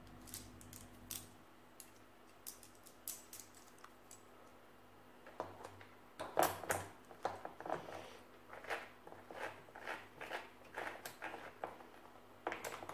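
Oregon Double Guard 91 saw chain and guide bar handled and fitted onto a cordless chainsaw: the chain links clink and the bar and plastic housing click. The light clicks are sparse at first and come thicker from about halfway through.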